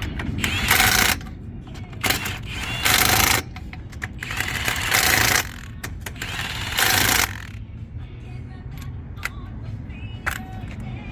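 Impact wrench running lug nuts onto a wheel in five short bursts, each under a second long, over the first seven or so seconds.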